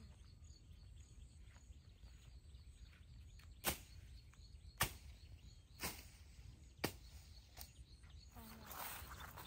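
Four sharp knocks about a second apart, with a fainter one just after, then rustling and scraping near the end.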